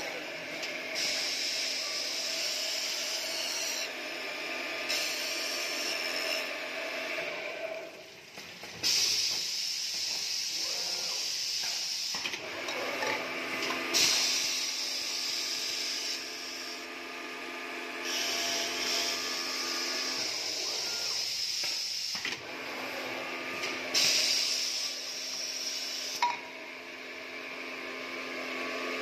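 Automatic glass-lid drilling machine running: a steady motor hum with several pitched tones, and a loud hissing that switches on and off every few seconds.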